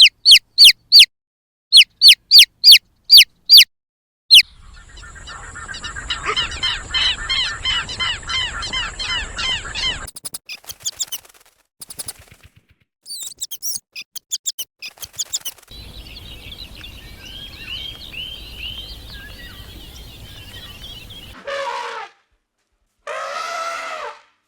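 Bird calls in several spliced segments: a quick series of sharp, falling chirps, then a dense chorus of chirping birds over a steady high tone, more falling chirps, a second chorus, and a few louder, lower calls near the end.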